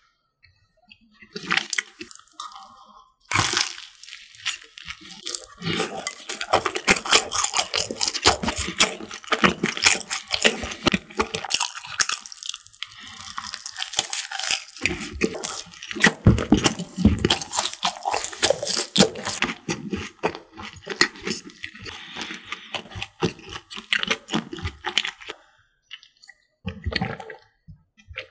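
Close-miked bite into an Oreo croffle (a croissant waffle topped with chocolate and Oreo crumbs) about three and a half seconds in, followed by crunchy, wet chewing that thins out near the end.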